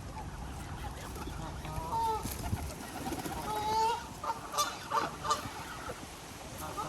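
Geese honking at a lakeside feeding: a couple of drawn-out honks, then a quick run of short honks about four to five seconds in, over a low outdoor rumble.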